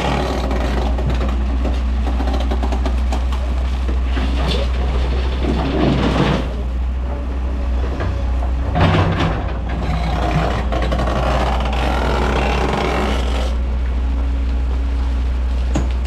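Heavy diesel engines of an excavator and dump trucks running at work, a steady low rumble with a louder swell about nine seconds in.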